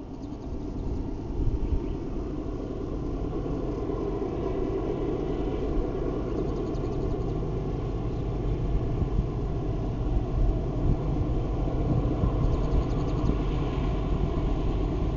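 Diesel locomotives of an approaching freight train heard from afar: a steady low engine rumble that grows gradually louder.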